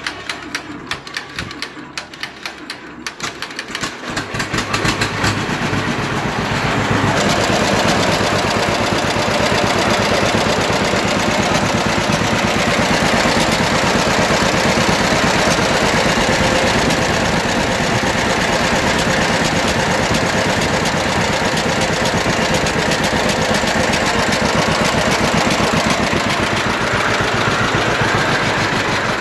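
John Deere Model B two-cylinder engine running: slow, separate firing beats at first, then it picks up speed between about four and seven seconds in and runs steadily. The fuel is being shut off at the sediment bowl to let the engine run itself dry because of a fuel problem.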